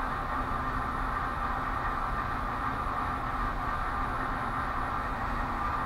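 Steady background hum and hiss with no distinct events: room tone or a fan-like drone.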